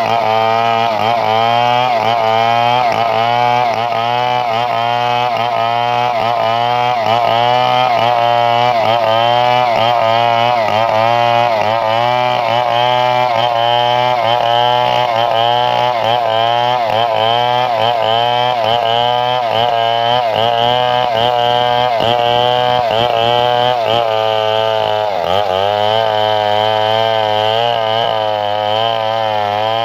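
Chainsaw engine running continuously, its pitch swinging up and down about once a second, with one sharp dip in pitch near the end.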